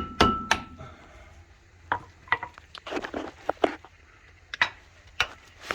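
Metal parts of a car's front wheel hub clinking and knocking together as they are handled, with a short ringing note from a struck piece of metal near the start and scattered clinks after.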